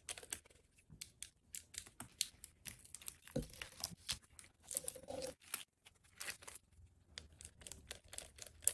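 Faint clicking, rustling and crinkling of electrical wires, plastic connectors and wrapping being handled and fitted, with a soft knock about three and a half seconds in.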